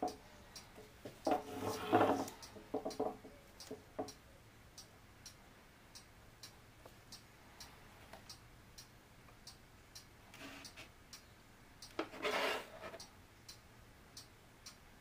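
Steady, evenly spaced ticking throughout. Louder bursts of rustling and knocking come a second or two in and again near the end, as a gloved hand moves and tips an upturned plastic paint cup on a stretched canvas.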